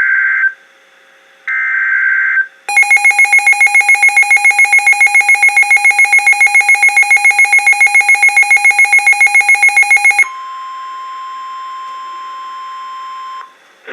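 NOAA Weather Radio emergency alert: two short raspy SAME data-header bursts, then a loud, rapidly pulsing alarm beeping about seven times a second. This gives way to the steady 1050 Hz weather radio warning alarm tone, which cuts off just before the voice message.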